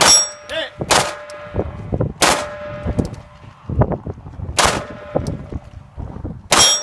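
Five pistol shots fired at an uneven pace over about seven seconds, each a sharp crack followed by brief ringing.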